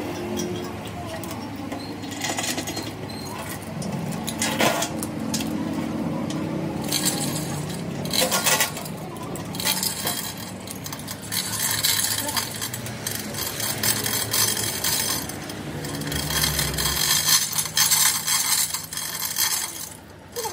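Steel lifting chains clinking and rattling as they are handled, wrapped and hooked around a truck's rear-axle housing, in irregular clusters of sharp clinks.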